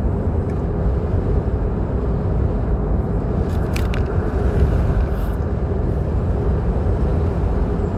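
Steady road and engine noise of a moving car, with a few faint clicks about three and a half seconds in.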